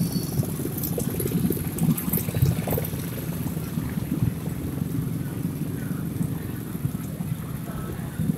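Many motorcycles and motorcycle-drawn rickshaw floats running slowly past in a column, a dense low rumble of small engines.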